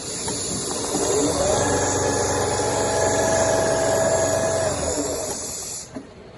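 CNC leather sewing machine stitching: its motor speeds up about a second in, runs at a steady high speed with a fast needle rhythm, then slows and stops about five seconds in. A steady hiss runs alongside and cuts off just before the end.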